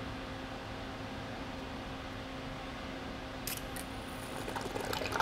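Steady low hum with a faint hiss, then, from about three and a half seconds in, light clicks and rustling of a clear plastic coolant-fill reservoir and its hose being handled, growing louder near the end.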